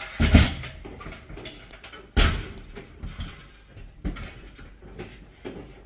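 Heavy thuds and knocks from a large vending machine being shifted: a loud thud just after the start, another about two seconds in, then lighter knocks.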